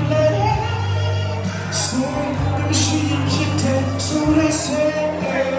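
Music with a voice singing over held low notes.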